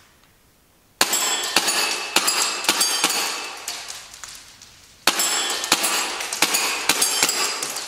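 Two rapid strings of shots from a Tokyo Marui S&W M&P9 gas blowback airsoft pistol, the first starting about a second in and the second about five seconds in. Each sharp pop of the cycling slide is followed by the clang of BBs striking metal target plates, which ring.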